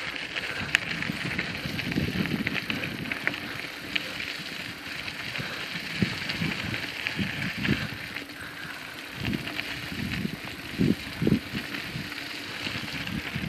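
Bicycle tyres rolling over a dirt and gravel trail, a steady crunching hiss with irregular knocks and rattles from the bikes going over bumps, a few louder ones a little past the middle.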